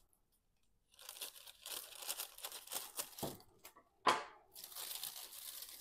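Bulb packaging bag being opened: crinkling and tearing, with one louder rip about four seconds in.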